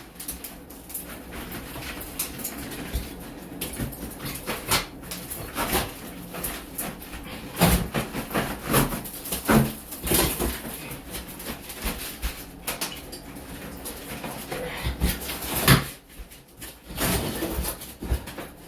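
Irregular knocks, cracks and scrapes of demolition: tiled cement board being broken and pried off a wall, with the loudest bangs about 8, 10 and 16 seconds in. A dog whimpers.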